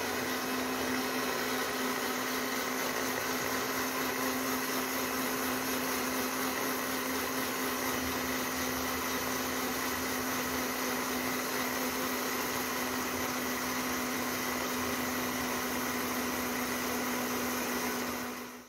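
Countertop blender running at one steady speed, a constant motor hum, as it blends milk, garlic and oil into a thickening sauce. It switches off suddenly near the end.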